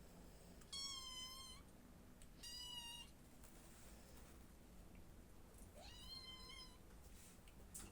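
A cat meowing three times: two calls close together, then a third a few seconds later. Each is a high, fairly level-pitched meow.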